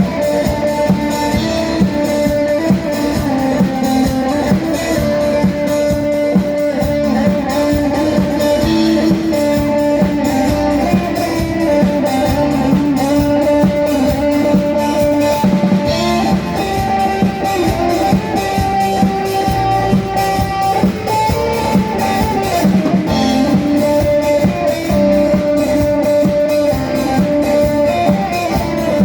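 Loud, continuous music led by guitar over a drum beat, played through a PA sound system under test.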